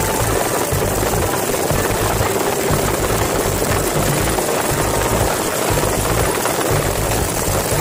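Helicopter in flight, its rotor and engine noise heard from inside the doors-off cabin: a loud, steady din with a choppy low beat.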